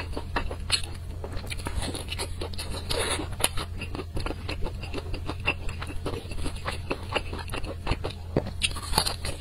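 Close-miked chewing and crunching of crispy fried chicken in a sticky spicy glaze: many irregular short crunches and wet mouth clicks, over a steady low hum.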